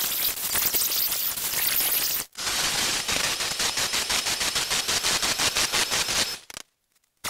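Bosch plunge router running as it cuts a slot into an MDF board, a steady loud whir that stops abruptly about two seconds in. After a brief gap, a different steady noise with rapid, even ticking and a faint high whistle runs on, then cuts off suddenly near the end.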